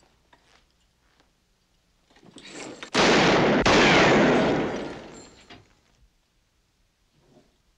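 Two gunshots in quick succession, a little over half a second apart, followed by a loud reverberant crash that dies away over about two seconds. A short rising noise comes just before them.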